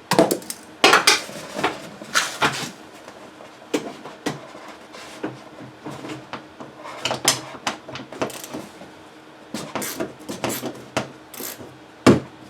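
Irregular metal clicks and clattering of a socket wrench being fitted and worked on the door handle's retaining nut inside a car door.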